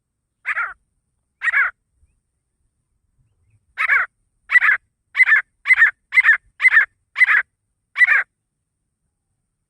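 Grey francolin (desi teetar) calling: two separate short, harsh notes, then a quicker run of eight notes at about two a second.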